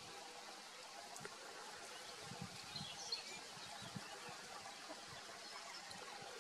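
Quiet open-air ambience with a few faint, short, high bird chirps about halfway through.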